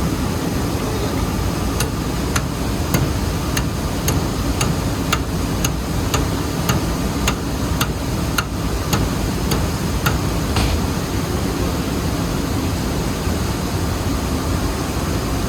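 Steady din of running rice-mill machinery, with a run of light, sharp metal taps, like a hammer tapping, about two a second, starting about two seconds in and stopping about ten seconds in.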